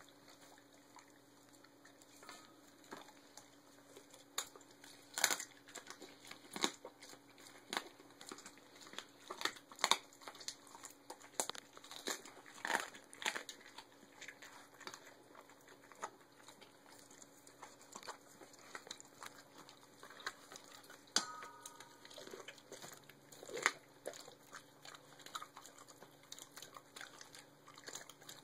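Dog chewing raw chicken leg quarter and rabbit, with irregular crunches and sharp clicks as it bites, and the plastic sheet under the food crinkling.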